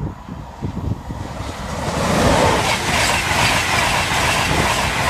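InterCity 225 express, Class 91 electric locomotive and Mark 4 coaches, passing at line speed: a rush of wheel and air noise that builds quickly from about a second and a half in and stays loud as the coaches sweep by.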